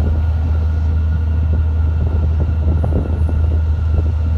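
Boat diesel engines running steadily under towing load, a constant low drone.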